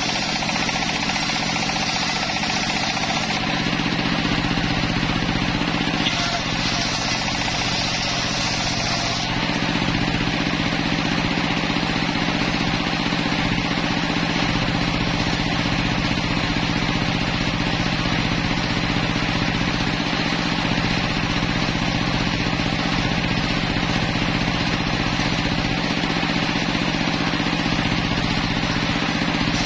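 Homemade circular sawmill running steadily, its large circular blade ripping timber boards under a constant machine hum. A harsher hiss of cutting comes at the start and again from about six to nine seconds in.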